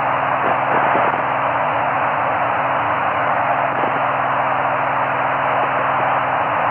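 Steady FM static hiss from a Kenwood TS-790E receiving the AO-92 (Fox-1D) satellite's 145 MHz FM downlink, with no voice on the channel and a low steady buzz underneath.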